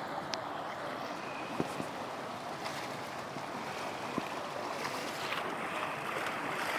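Floodwater from an overflowing stream rushing steadily along a flooded lane, with a couple of faint knocks.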